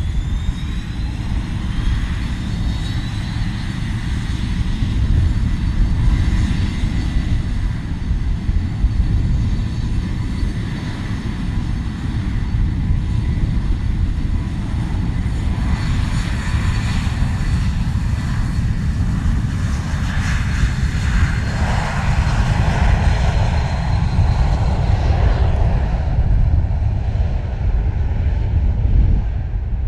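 Four Lycoming ALF502 turbofans of a BAe 146-200 airliner spooling up to take-off power, their whine rising in pitch over the first few seconds, then a steady whine over a deep rumble as the jet rolls along a wet runway. Near the end the high whine falls away as the aircraft runs off into the distance.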